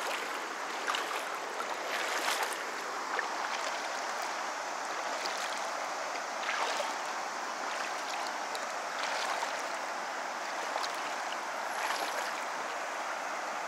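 Steady rush of a shallow, stony river flowing, with a few brief louder moments scattered through it.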